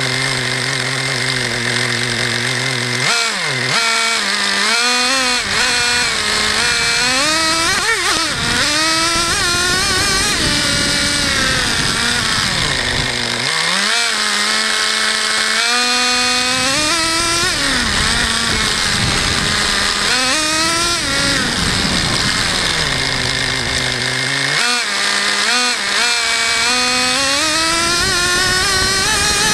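Traxxas Jato 3.3 nitro RC car's small two-stroke glow engine, idling steadily and then revving up and down in repeated surges from about three seconds in. It drops back to idle twice along the way.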